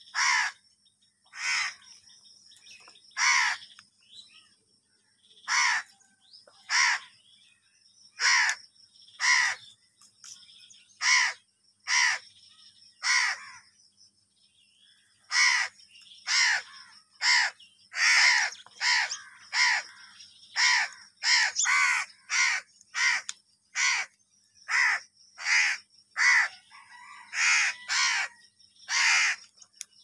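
House crows cawing over and over: short, harsh caws, about one every second or two at first, then coming faster, about one a second, after a brief pause midway.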